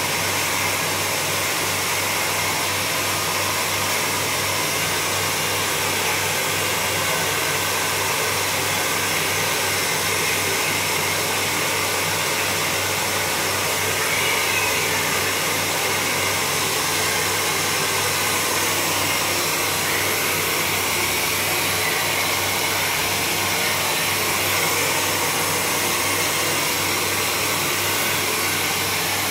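Handheld hair dryer running steadily on a high setting, a continuous rush of air with a low motor hum underneath.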